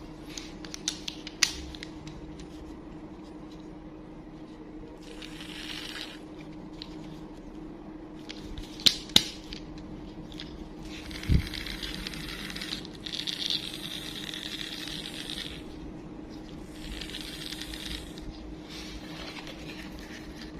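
Hands unboxing a toy: plastic packaging rustling in several stretches, with scattered sharp clicks and taps, two strong clicks about nine seconds in and a low knock about eleven seconds in. A steady low hum runs underneath.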